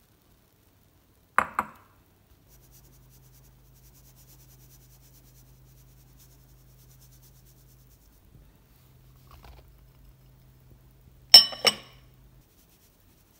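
Stainless steel mesh sieve knocking against a ceramic mixing bowl while sifting flour and cocoa powder: two quick clinks about a second and a half in, and two louder ringing clinks near the end. A faint low hum runs between them.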